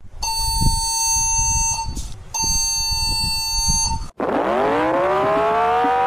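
An alarm tone sounding in two long, steady beeps of about a second and a half each, over a low rumble. About four seconds in it cuts off and a siren starts winding up, its pitch rising steadily.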